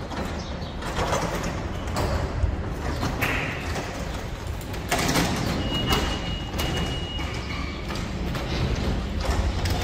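Footsteps on a concrete floor, about one a second, over a steady low rumble.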